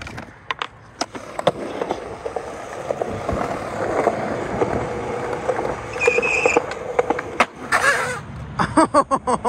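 Skateboard wheels rolling on concrete with a steady rumble, then a sharp crack of the tail popping a hard flip a little past seven seconds in and a louder clatter of the board landing just after. A few clicks of the board being set down and pushed come first.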